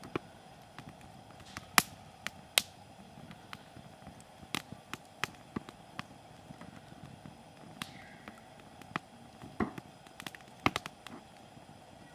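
Hardwood firewood burning in a campfire, crackling with irregular sharp pops, a few much louder than the rest, over a faint steady hiss.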